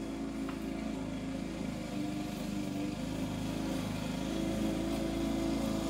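A motor running steadily, a low even hum.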